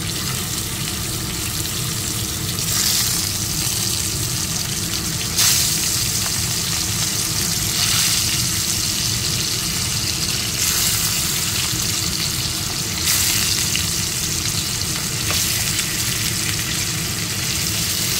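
Catla (bhakua) fish pieces sizzling in hot oil in a frying pan, a steady hiss that flares up briefly about every two to three seconds as another piece is laid in.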